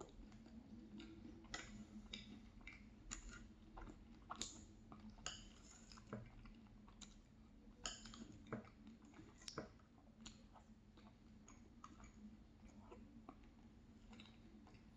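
Faint eating sounds: a spoon clicking against the dish and the wet mouth sounds of chewing ice cream with crumbled almond-raspberry tart. The clicks come thickest in the first ten seconds and thin out after.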